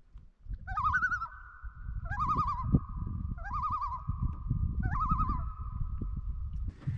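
A bird calling four times, each a short wavering call starting with an upward slide, spaced about a second and a half apart. The calls sit over a steady high held tone, with a low rumble underneath.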